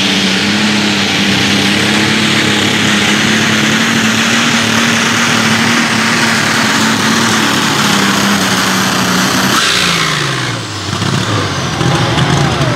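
Turbocharged Farmall super stock pulling tractor engine running at full throttle under load down the track. About ten seconds in, its pitch falls as the engine winds down at the end of the pull, settling to a lower, steady run.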